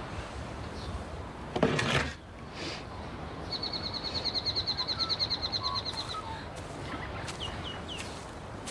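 Garden birdsong: a bird's rapid, even high trill of about ten notes a second lasting two to three seconds, followed near the end by three short falling chirps, over a steady outdoor background hiss. A short loud noise comes about two seconds in.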